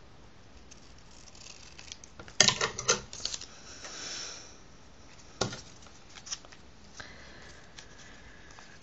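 Scissors cutting a paper strip, with the paper being handled: a cluster of sharp snips and clicks about two and a half seconds in, a soft rustle, then another single sharp click a couple of seconds later.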